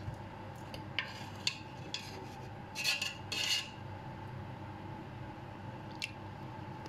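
Steel ladle clinking and scraping against the pot and a ceramic bowl while thick curry is served: a few light clinks, a longer scrape about three seconds in, and another clink near the end, over a steady hum.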